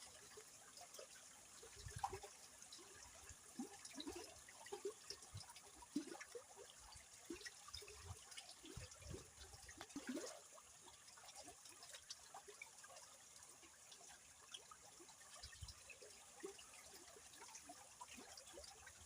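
Faint river water trickling and gurgling, with many small irregular gurgles and splashes and a few brief low thumps.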